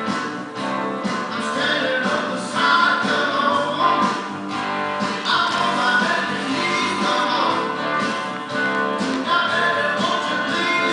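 Background music with strummed guitar.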